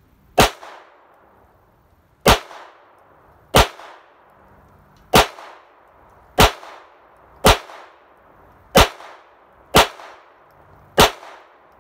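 Smith & Wesson Victory .22LR semi-automatic pistol fired slowly in single shots: nine sharp cracks about one to two seconds apart, with a tenth at the very end, each trailing off in a brief echo.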